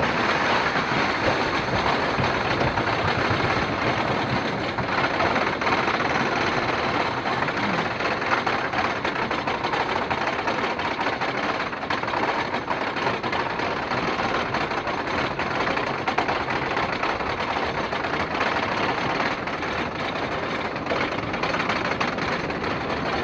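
Thunderhead wooden roller coaster's chain lift hauling the train up the lift hill: a steady, rapid mechanical clatter of chain and clicking that keeps an even pace throughout.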